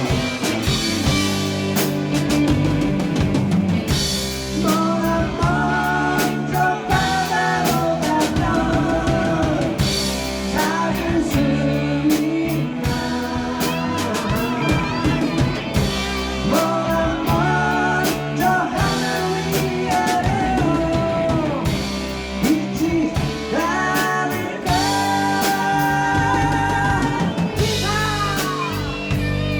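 Band playing a rock ballad: drum kit, bass, guitars and keyboard, with long held lead melody notes that come and go over the steady beat.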